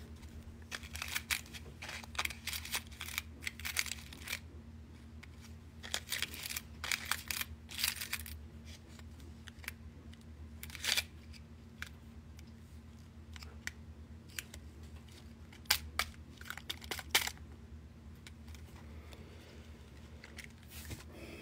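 Small tumbled sugilite stones clicking and rattling against each other in a small cardboard box as it is tilted and turned, in several short spells of quick clicks.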